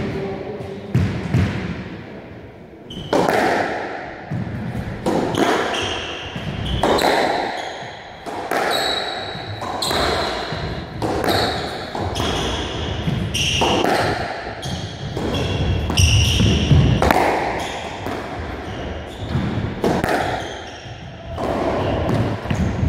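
Squash rally: a rubber squash ball struck by rackets and smacking off the court walls roughly once a second, echoing in the enclosed court, with short high shoe squeaks on the wooden floor between the shots.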